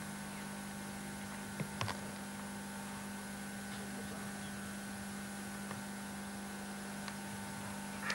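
Steady electrical hum with hiss underneath, with a few brief clicks about two seconds in and near the end.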